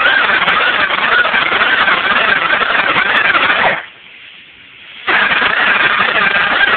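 Power drill spinning a flexible ball hone inside an oiled cylinder bore of a 350 engine block, scuffing a crosshatch into the walls so the piston rings will seat. It runs for nearly four seconds, stops for about a second, then starts up again.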